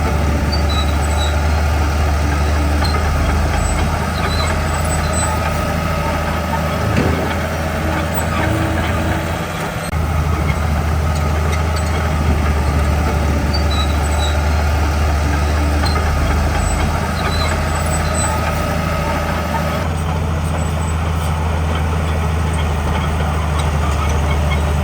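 Heavy diesel engine of earthmoving machinery running steadily under load, its low drone dipping briefly about ten seconds in.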